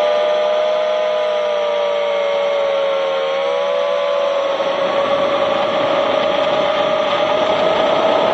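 FPV quadcopter's brushless motors and propellers whining, heard from the quad's own onboard camera: a buzzing tone with several overtones that sags slightly in pitch, then climbs as the throttle changes. About halfway through, a rushing noise swells beneath it.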